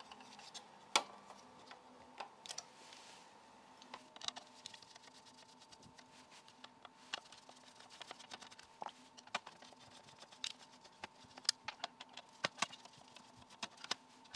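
Scattered small clicks and taps from hands handling the metal power-supply case and its wiring, then a screwdriver working at the fan-grille screws on the back panel. The loudest click comes about a second in, and a faint steady hum runs underneath.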